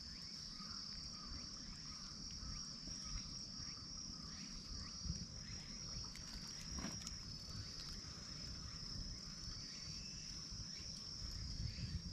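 Insects buzzing in one steady high-pitched drone, with faint short chirps and a low rumble underneath and one light click about seven seconds in.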